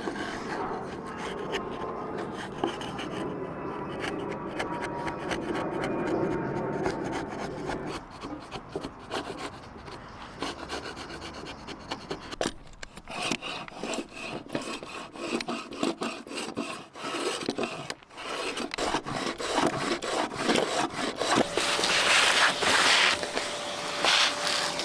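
Wood chisel paring and scraping along timber in a run of short, repeated strokes, growing quicker and harsher in the second half.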